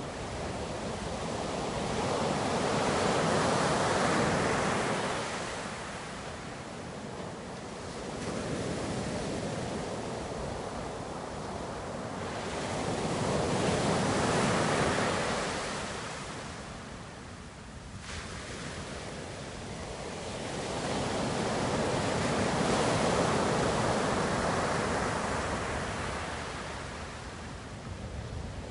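Ocean surf: waves breaking and washing in, the rush of water swelling and fading in three slow surges about nine or ten seconds apart.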